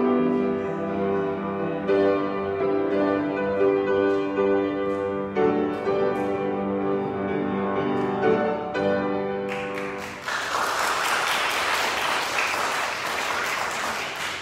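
Keyboard music playing held chords, which ends about ten seconds in. A congregation then applauds for about four seconds.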